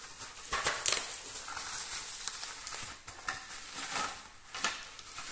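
Bubble-wrap packaging crinkling and crackling as it is handled, with irregular sharp crackles. The loudest comes about a second in.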